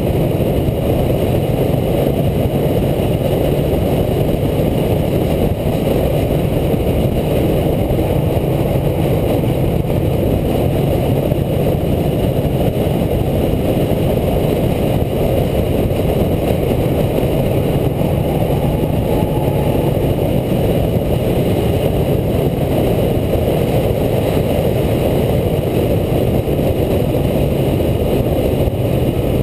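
Onboard sound of a racing pickup truck at speed on a short oval: its engine running hard at nearly constant revs, mixed with heavy wind and road noise on the truck-mounted camera. The sound stays loud and steady, with hardly any rise or fall in pitch.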